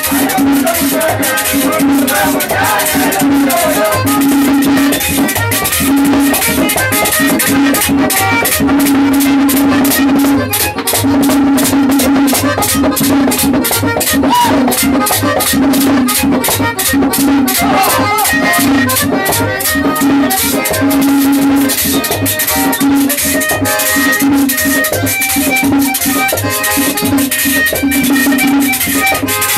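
Live Dominican dance music: an accordion playing over fast, steady rattling percussion and a pulsing drum beat.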